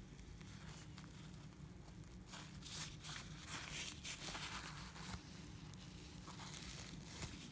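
Paper towel rustling and crinkling as it is rubbed over a freshly filled fountain pen's nib and barrel to wipe off the excess ink. The rubbing comes in rough bursts, starting about two seconds in.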